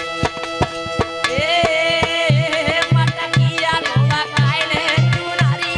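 Indian devotional folk music: a dholak beats a regular rhythm, its bass strokes bending in pitch, over a steady drone. A wavering melody line comes in about a second in.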